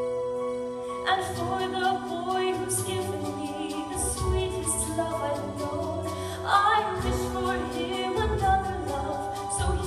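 A woman singing a slow musical-theatre ballad with vibrato over sustained pit-orchestra accompaniment; her voice comes in about a second in, with theatre reverberation.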